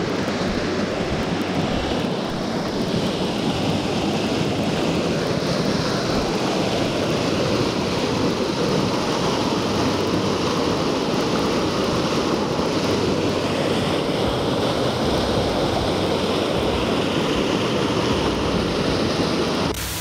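Waterfall pouring over rock: a steady, unbroken rush of falling water.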